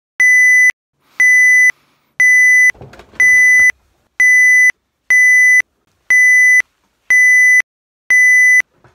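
Electronic alarm beeping: nine even, high-pitched beeps about once a second, each about half a second long. Faint rustling can be heard between the beeps a few seconds in.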